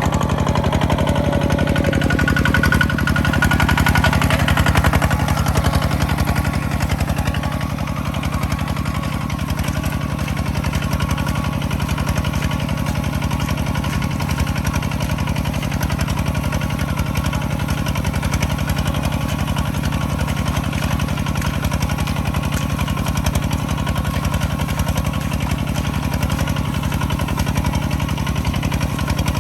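Engine of farm machinery used for rice harvesting running steadily, with a brief higher whine a few seconds in.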